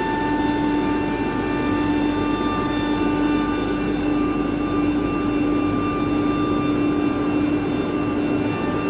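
ATC CNC router running, a steady whine of several held tones over a constant rushing noise.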